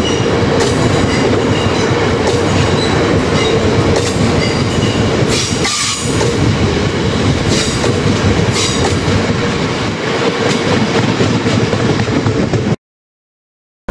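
Freight train of covered hopper wagons rolling past, the wheels clattering over rail joints in repeated knocks over a steady whine. The sound cuts off suddenly near the end.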